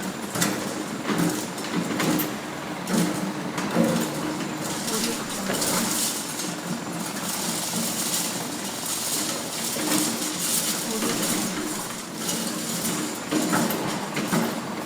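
Construction site ambience: a steady din of machinery and work noise with scattered metal clanks and knocks, and voices mixed in.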